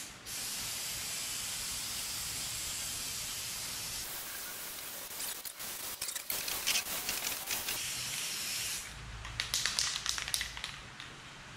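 Aerosol can of high-strength spray contact adhesive hissing: one long steady spray, then several shorter, louder sprays. Near the end comes a rattle of quick clicks.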